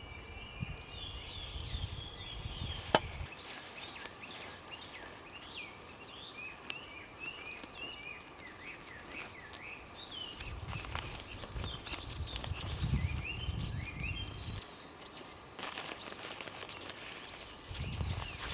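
Songbirds chirping and warbling continuously in woodland, with a single sharp click about three seconds in. Low rumbling noise comes and goes in patches at the start, in the middle and near the end.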